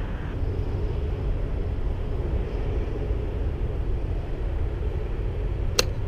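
A golf iron cracks sharply against the ball once, near the end, over a steady low rumble.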